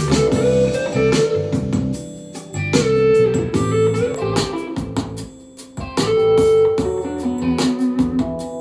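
A guitar-led song played through a portable Bluetooth speaker at 80% volume, recorded from about five feet away.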